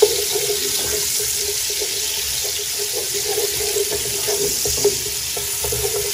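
Sliced onions sizzling in hot oil in a pan, frying toward light brown, with a steady hiss. A wooden spoon stirs them, scraping and knocking against the pan in short irregular strokes.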